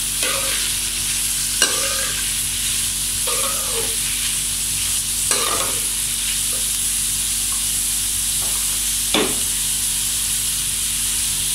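Julienned carrots sizzling in hot oil in a frying pan, stirred with a slotted metal spatula that scrapes and knocks against the pan about five times.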